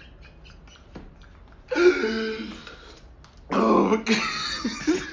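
A man makes two loud, rough sounds from the throat, each about a second long: the first about two seconds in, the second about three and a half seconds in.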